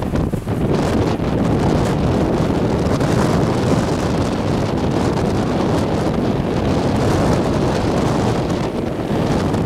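Hurricane winds buffeting the microphone: a loud, continuous, rumbling rush of wind noise that swells and eases slightly with the gusts.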